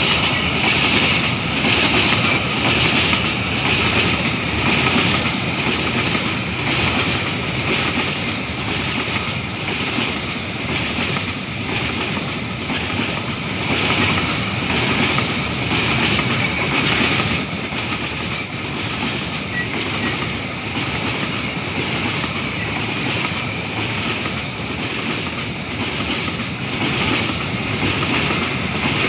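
Babaranjang coal train's hopper wagons rolling steadily across a concrete railway bridge, the wheels clacking over the rail joints in an even rhythm of about one beat a second over a continuous rumble.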